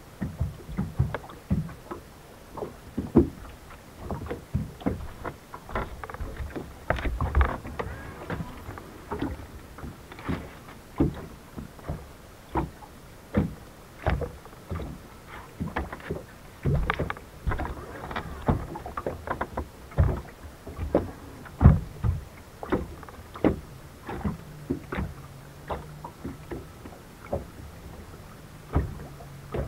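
Small waves slapping and knocking irregularly against a bass boat's hull, one to three hits a second and uneven in strength. A low steady hum comes in about three quarters of the way through.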